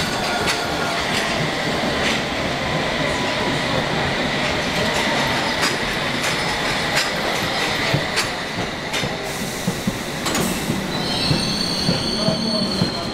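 London Underground trains running through an open-air station: a steady rumble with repeated clicks as wheels cross rail joints, and a thin wheel squeal. Near the end, several high-pitched squealing tones set in as a train runs in alongside the platform.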